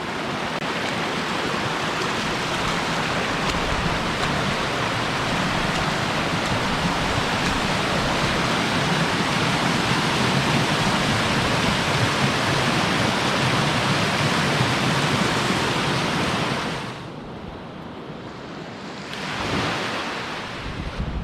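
Small coastal waterfall splashing down onto rocks, a loud steady rush of falling water. It drops away sharply near the end to a quieter rush.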